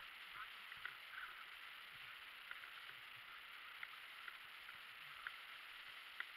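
Near silence: a faint, steady outdoor hiss with scattered light ticks.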